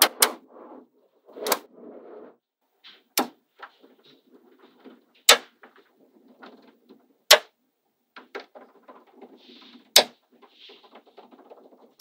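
Small magnetic balls snapping together with sharp clicks, about six over the stretch, a second or more apart, with soft rattling and rolling of the balls in between.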